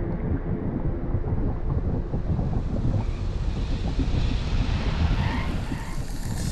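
Pool water heard underwater: a steady low rumble of moving water, with a hiss of churning water and bubbles rising from about two seconds in as a swimmer passes through.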